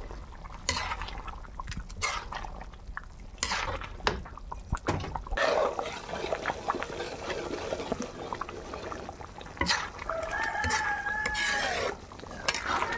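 A pot of thick dinuguan sauce being stirred, with scattered clicks and scrapes. A rooster crows once in the background, one long call near the end.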